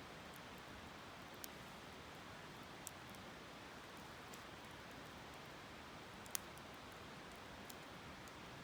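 Faint steady rush of a flowing river with a few sharp crackles from a wood campfire, four in all, the loudest about six seconds in.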